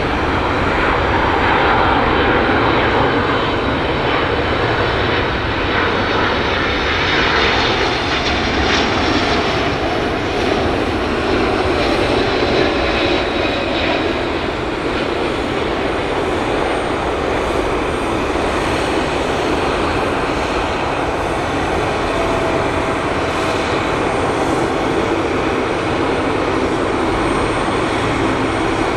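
Jet airliner engines running: a loud, steady rush of noise with a few faint whining tones above it.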